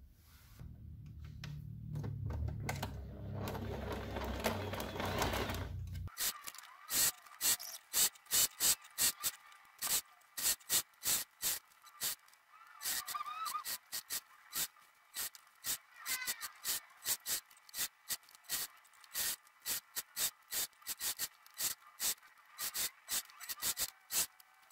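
Rustling and handling noise for about the first six seconds, then a domestic sewing machine stitching slowly, its needle clicking a few times a second in uneven runs.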